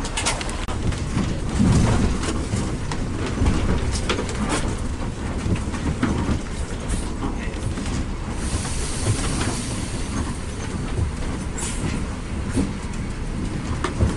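Inside a moving intercity bus: a steady low rumble of engine and road, with scattered sharp rattles and clicks from the cabin, and a high hiss joining about eight seconds in.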